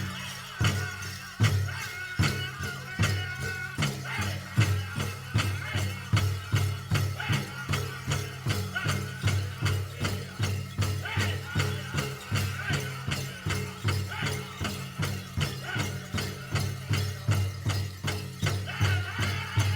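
Powwow big drum struck in a steady beat of about two to three strokes a second, with a drum group singing over it and the jingle of dancers' bells. The strokes are more widely spaced at the start, then settle into the even beat.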